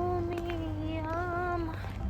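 Background music: a high voice holds one long sung note over a steady low bass.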